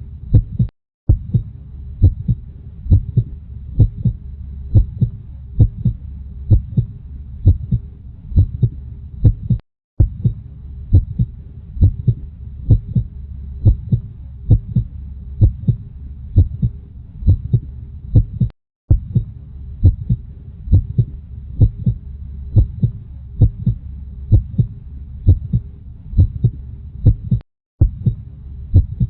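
Heartbeat: a steady, regular rhythm of low thumps over a constant low hum. The sound drops out for a split second about every nine seconds.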